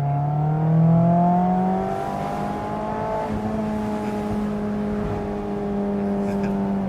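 A 2024 Mazda MX-5 Miata's four-cylinder engine through a Goodwin race exhaust, pulling under acceleration. The revs climb over the first two seconds, then hold roughly steady.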